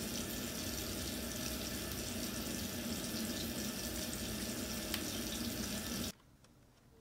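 Water running steadily from a bathroom sink faucet into the basin, stopping abruptly about six seconds in.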